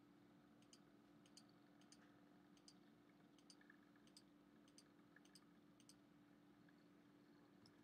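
Near silence: a faint steady hum with about ten faint, sharp clicks at uneven intervals.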